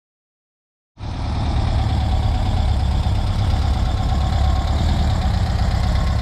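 A Volkswagen Beetle's air-cooled flat-four engine running steadily, starting about a second in.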